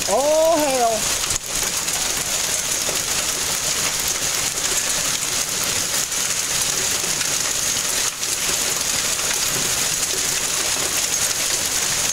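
Small hail and rain falling steadily on pavement, grass and a parked car: a dense, even hiss of pellets. A brief voice that rises and falls in pitch sounds at the very start.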